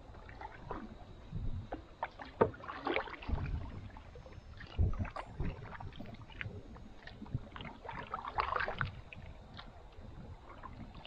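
Canoe paddle strokes through duckweed-covered water: irregular splashes and drips, with a few low thumps, the loudest about two and a half and five seconds in.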